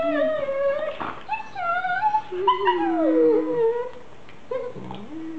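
German Shepherd dogs vocalizing as they play-fight: a string of long, drawn-out pitched calls that slide downward, with a short sharp snap about a second in. The calls fall quieter after about four seconds.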